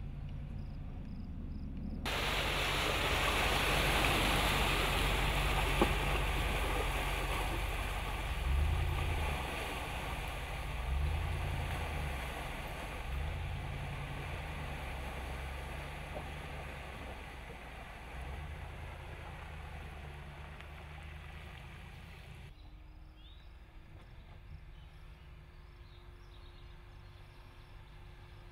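Ram 2500's 6.4-litre HEMI V8 pulling the truck through a muddy, water-filled track. From about two seconds in, a loud rushing of water and mud churned up by the tyres covers the engine, which revs up several times. The rushing cuts off near the end, leaving the engine running more quietly.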